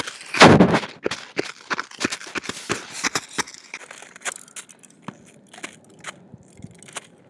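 Footsteps crunching through deep snow, an uneven series of crisp crackles. A loud rush of noise lasting about half a second comes just after the start.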